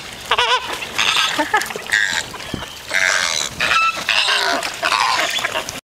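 A flock of flamingos calling: many overlapping honking calls, one after another, cutting off suddenly near the end.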